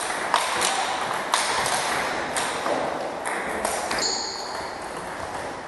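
Table tennis rally: the ball clicks sharply off the paddles and the table, about half a second to a second apart, until around four seconds in. Just then there is a brief high squeak.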